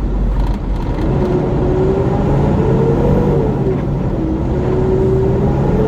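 Vehicle engine and road noise while driving in highway traffic. The engine note climbs from about a second in, eases off around the middle and climbs again near the end.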